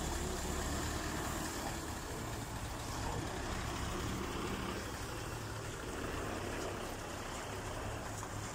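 Diesel engine of a Scania heavy-haul truck running steadily, an even low hum with no changes in pitch.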